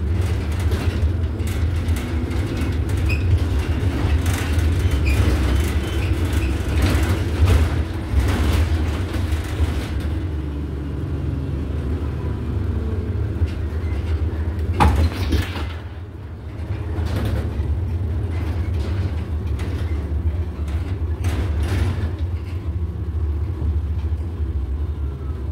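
Inside an Iveco Urbanway city bus on the move: a steady low rumble from the drivetrain and road, with many short rattling clicks from the cabin fittings. There is a sharper knock about fifteen seconds in, then a brief dip in the noise before it picks up again.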